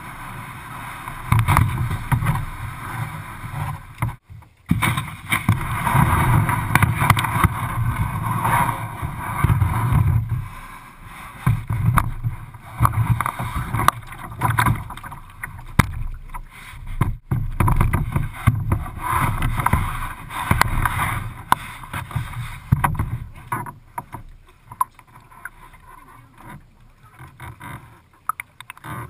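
Plastic kayak being handled and launched off a dock: irregular knocks, bumps and scrapes carried through the hull, loudest in the first half and fewer near the end once it is afloat.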